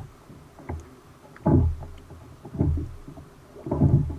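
Kayak paddle strokes in the water, about one a second.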